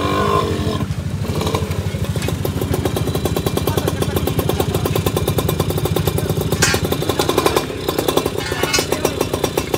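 An engine running steadily with a rapid, even pulsing beat.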